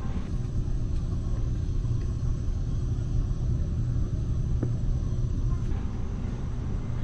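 Steady low rumble and hum inside the passenger cabin of a KTX-EUM train, with one faint click about four and a half seconds in.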